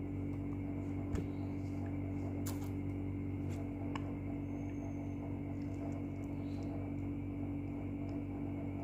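A steady low hum with a few light, sharp taps, the stylus tip tapping on the tablet's glass screen. The taps fall mostly in the first half, with a soft thump about a second in.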